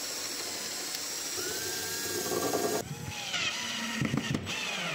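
Cordless drill boring a pilot hole through a pine board with a twist bit, then, about three seconds in, driving a large wood screw into the hole. The pilot hole goes through only the first board and is slightly smaller than the screw, so the threads bite and pull the two boards together.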